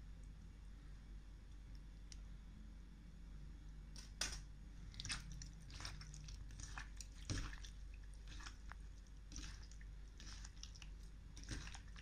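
Raw shrimp squeezed and rubbed by hand in a plastic bowl of water: irregular wet squelches and squishes, which start about four seconds in.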